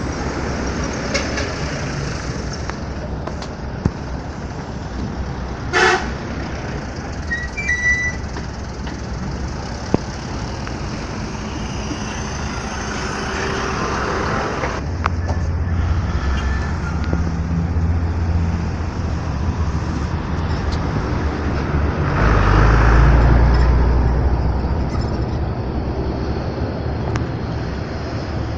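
Road traffic with heavy vehicles passing, their engine rumble swelling and loudest about three-quarters of the way through, and a short horn toot about six seconds in.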